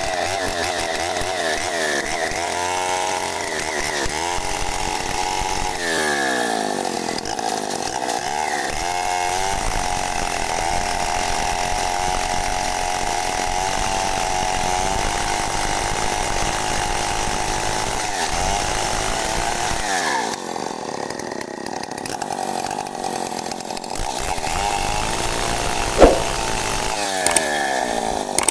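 Chainsaw fitted with a CDI ignition module, its engine running and being revved up and down several times, then held at a steady high speed for about ten seconds. It drops to a lower speed for a few seconds and revs up again. A single sharp knock comes near the end.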